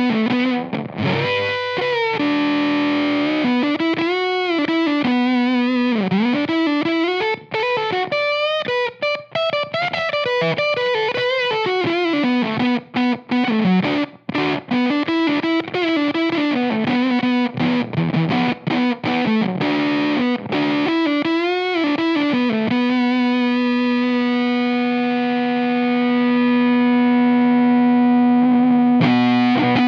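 Electric guitar, a Fender Stratocaster, through a Bennett Custom Audio Fuzz Academy germanium fuzz pedal into a 1966 Fender Bandmaster amp, playing a distorted single-note lead with many string bends and vibrato. Near the end it holds one long sustained note.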